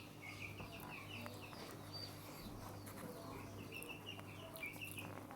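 Birds calling faintly: two runs of short, quickly repeated chirps, one near the start and another about three seconds in, over a steady low hum.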